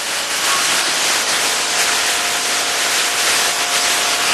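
Steady loud hiss, with a faint steady tone joining about two seconds in.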